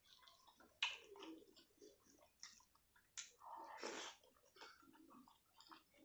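Soft, close-miked eating sounds: wet squishing of fingers mixing rice and dal, and chewing, as a string of small irregular clicks and smacks. A sharper one comes a little under a second in, and a longer, louder patch about four seconds in.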